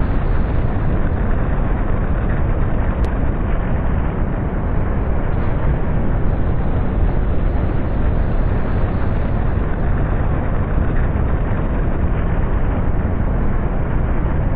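Library rocket-launch sound effect: steady, loud rocket engine noise, heaviest in the low end, unbroken as the rocket climbs away.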